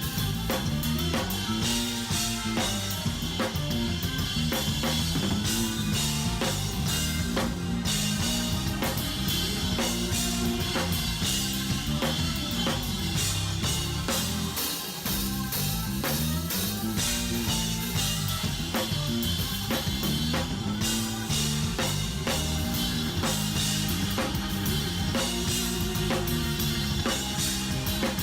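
Band music driven by a busy drum kit: rapid snare, bass drum and cymbal hits over a moving bass line. The bass drops out briefly about halfway through.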